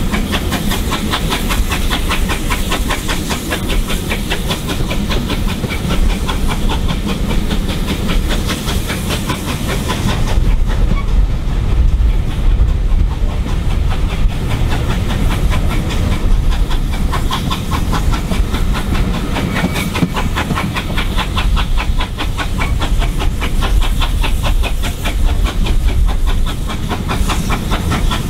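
Steam locomotive working along the line with a fast, steady rhythm of exhaust beats and hiss, over the rumble and rail clatter of the carriages, heard from an open carriage window. The upper hiss drops away for a few seconds about ten seconds in, then comes back.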